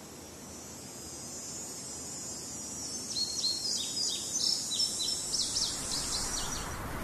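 Outdoor nature ambience fading in: a steady, high insect drone of crickets or cicadas, with a bird giving a rapid series of short chirps over it from about three seconds in. Both cut off suddenly just before the end.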